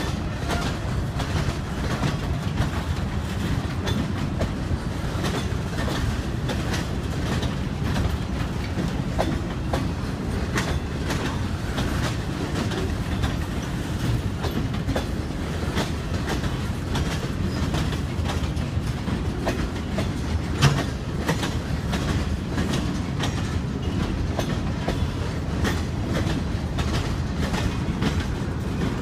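Freight train boxcars rolling past: a steady low rumble of steel wheels on rail with frequent clicks as the wheels cross rail joints, and one louder clank about two-thirds of the way through.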